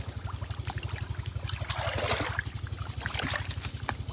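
Water sloshing and splashing as hands grope through a submerged hollow for fish, the strongest splash about two seconds in. Underneath runs a steady low engine putter of roughly a dozen beats a second.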